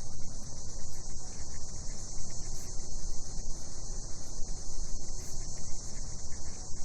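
Night chorus of cicadas: a steady, high-pitched insect drone with no breaks, over a low, rumbling hiss.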